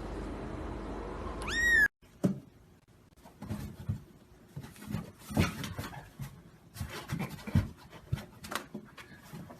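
A domestic cat gives one short, loud, rising meow over a steady background hiss, cut off abruptly about two seconds in. After the cut come scattered light taps, thumps and rustles.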